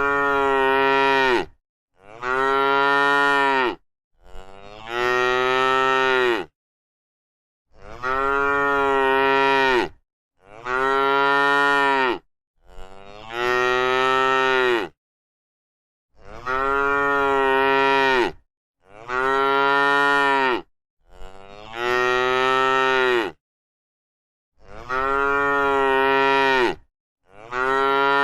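Cow mooing over and over: about eleven long moos of about two seconds each, much alike in pitch, with dead silence between them.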